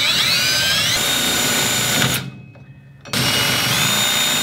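Power drill driving a bit on a hex extension into a broken-off bolt stub in a rusted cast-iron brake bracket. The motor whines up to speed, stops about two seconds in, then starts again a second later and speeds up once more.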